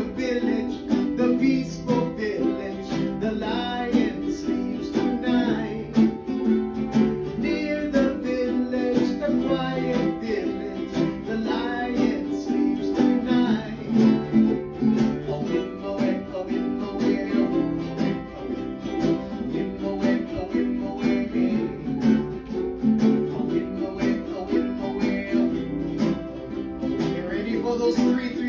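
Upbeat music with plucked guitar and a steady beat, with singing over it.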